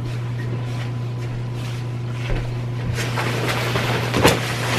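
A steady low hum, then from about three seconds in the swishing rustle of a padded nylon snowmobile jacket being handled, with a sharp snap or knock near the end.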